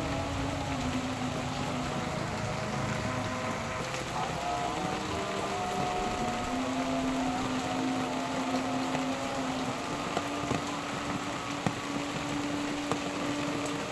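Steady rain falling, with a few sharp drip ticks near the end. Under it runs a droning hum whose pitch holds for a few seconds and then shifts.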